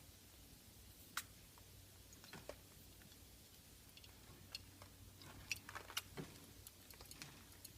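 Faint, scattered small clicks and taps from budgies moving about in a bath dish, over a low steady hum, with a small cluster of clicks a little past the middle.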